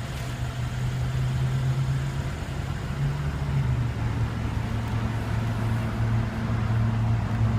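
Car engine idling with a steady low hum; its pitch shifts slightly about three seconds in.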